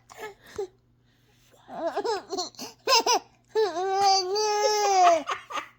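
A baby babbling in a quick run of short high-pitched syllables, then one long drawn-out squeal held for over a second.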